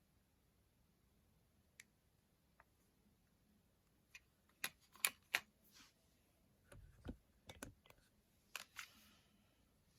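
Scattered soft clicks and a couple of dull low knocks with near silence between them: a Nokia 2600 mobile phone being handled and its keys pressed between ringtones. A few clicks come close together about five seconds in, the knocks around seven seconds, and two more clicks near the end.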